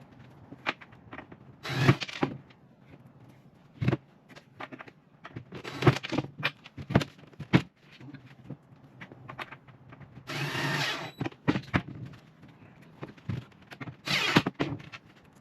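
Power drill driving screws through metal corner brackets into the plywood cabinet box, in four short runs, the longest about a second, with clicks and knocks of handling between them.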